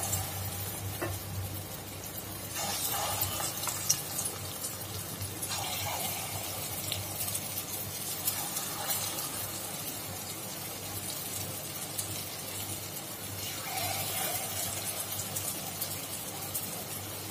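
Moong dal fritters deep-frying in hot oil in a deep steel pot: a steady sizzle with fine crackling.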